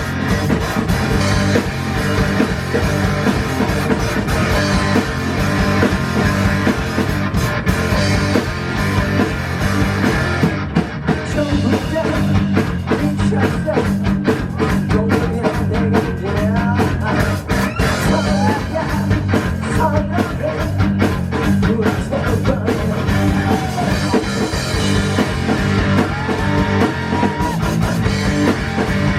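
Rock band playing a song with electric guitar and drum kit, loud and continuous.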